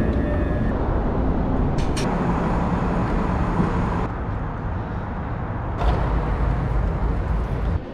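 Steady low rumble of city traffic on the street, with two brief knocks about two seconds and six seconds in.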